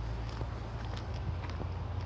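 Footsteps of a person walking on a road, faint steps about every half second, over a steady low rumble.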